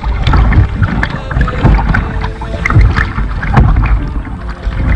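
Kayak paddling heard close to the waterline: the double-bladed paddle dips and splashes stroke after stroke while water rushes along the bow, in a rough rhythm of about one surge a second. Heavy wind rumble on the microphone underneath.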